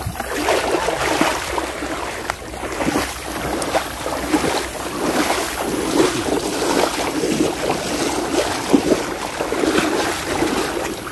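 Water sloshing and splashing in irregular swishes as people wade through a river.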